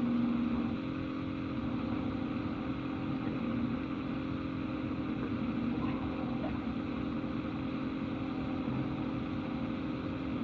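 Steady low hum and hiss of a recorded telephone line during a pause in a 911 call, with no voices.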